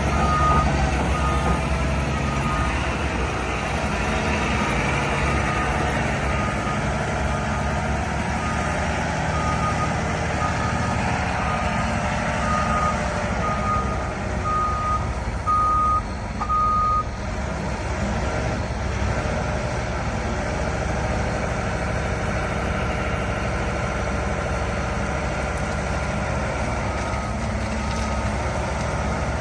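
Heavy diesel machine running steadily, with its reversing alarm beeping about once a second. The beeping stops a little past halfway and starts again near the end.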